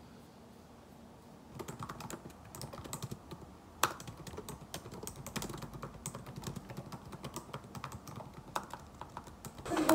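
Typing on a laptop keyboard: a fast, uneven run of light key clicks that starts about a second and a half in, with one sharper click near four seconds.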